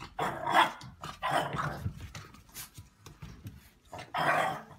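Puppy barking in three short bouts, the last near the end.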